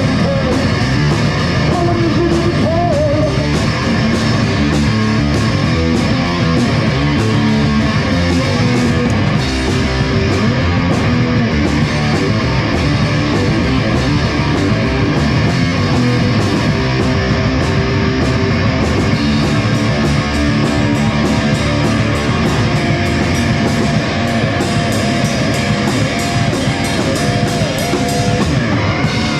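Rock band playing an instrumental passage on guitar and drum kit, with a steady beat throughout.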